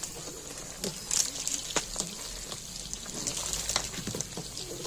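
A metal ladle stirs thick, bubbling kesari batter in a large aluminium pot, with wet slopping and splattering. The ladle gives scattered sharp knocks and scrapes against the pot's side, the loudest a little past one second and around two seconds in.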